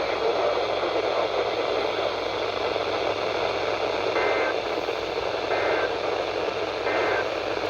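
Heavy, steady static from a weakly received radio signal. In the second half come three short, faint two-tone data bursts about a second and a half apart, the pattern of an Emergency Alert System SAME header coming through the noise.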